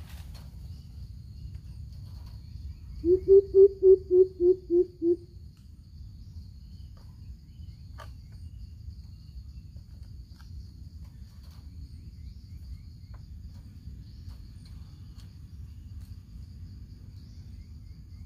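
Greater coucal giving a run of about eight deep, evenly spaced hoots, lasting about two seconds, a few seconds in. A steady, faint high insect buzz runs underneath.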